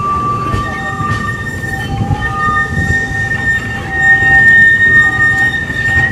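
Narrow-gauge passenger coaches rolling slowly past with their wheels squealing: long, steady high-pitched squeals that shift to a higher note about a second in, over a low rumble of the running gear.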